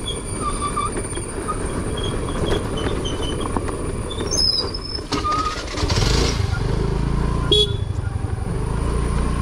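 A motor vehicle's engine running, with a steady low drone that grows louder about six seconds in, and a sharp click shortly after.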